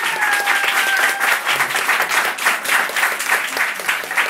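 Audience applauding, with dense, irregular clapping throughout. A drawn-out voice trails off, falling slightly in pitch, during the first second or so.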